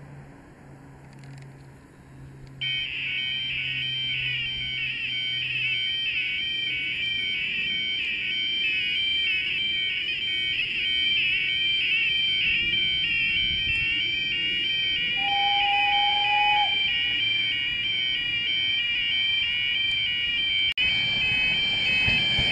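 Level crossing warning alarm coming on suddenly about three seconds in and then sounding loud and steady in a fast, regularly repeating warble; it sounds unwell. A brief steady tone is heard briefly over it about two thirds of the way through.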